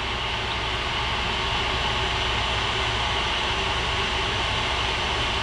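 Ender 3 Pro 3D printer running as it gets back to printing: a steady whir of its cooling fans and stepper motors moving the print head.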